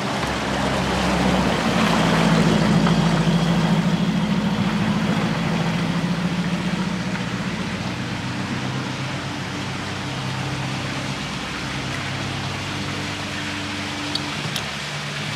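Bass boat outboard motor running at idle speed as the boat creeps forward: a steady low engine hum that swells for a few seconds near the start, then settles lower.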